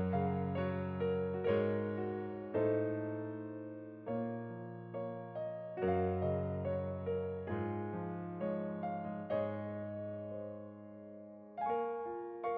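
Slow piano music. Notes and chords are struck and left to ring and fade, with a new attack every half second to a second and a half.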